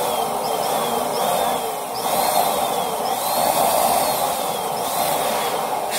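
Electric balloon inflator pump running steadily, blowing air into a foil shell-shaped balloon, with short squeaky glides over the noise of the pump. The pump cuts off at the very end.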